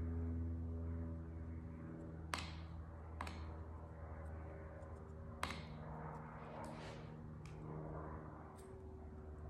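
Wet, goopy abaca paper pulp being worked by hand onto a pulp painting: a few faint, sharp wet ticks spread through, over a steady low hum.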